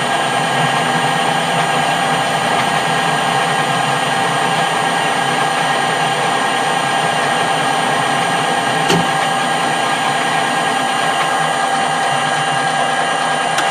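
Metal lathe running steadily while taking a light turning pass, its motor and gearing giving a steady whine made of several fixed tones. A single short click about nine seconds in.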